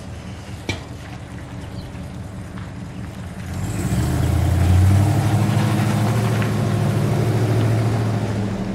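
Full-size SUV's engine running as it drives past, growing much louder about three and a half seconds in, holding steady, then dropping away at the end.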